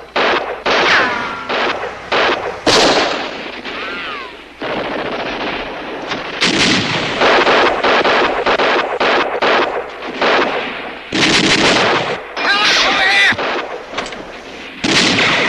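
Gunfire: repeated bursts of automatic fire mixed with single shots, coming in quick clusters.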